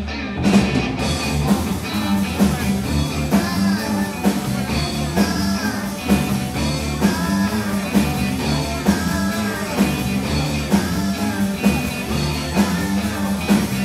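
Live blues-rock trio playing: electric guitar, electric bass and drum kit, with a steady beat.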